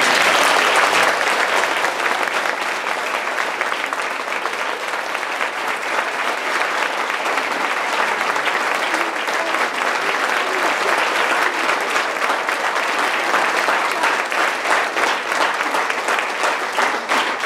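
Sustained applause from a hall full of schoolchildren, breaking out sharply as the singing stops and carrying on steadily, with the claps growing more distinct near the end.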